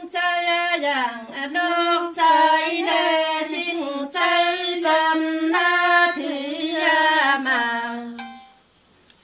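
A woman singing unaccompanied, one voice in a Nùng đối đáp (call-and-response) folk song: a long line of held, sliding notes that drifts downward in pitch and stops about eight and a half seconds in.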